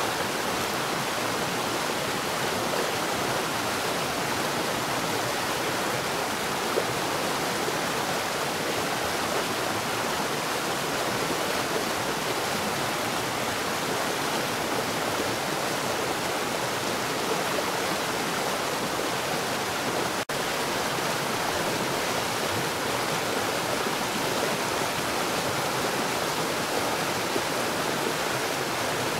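Water falling fast underground: a steady, unbroken rush of pouring water, with a split-second dropout about twenty seconds in.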